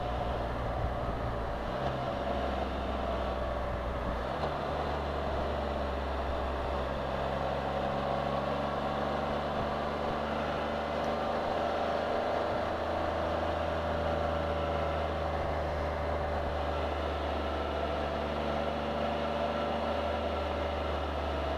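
Can-Am Spyder three-wheeled motorcycle running at road speed: a steady engine and road hum whose pitch wavers slightly, with a shift in the low drone about four seconds in.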